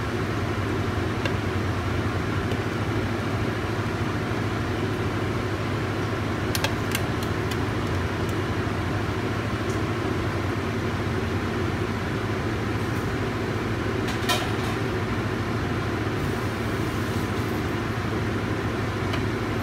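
Steady low hum and rushing noise, with a few light clicks about a third of the way in and one more about three quarters through.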